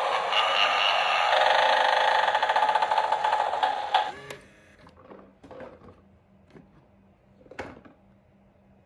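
Battery-powered animated eyeball doorbell's small speaker playing a loud, buzzy, distorted spooky sound effect with a rapid rattling pulse, which cuts off suddenly about four seconds in. A few faint clicks follow, with one sharper click near the end.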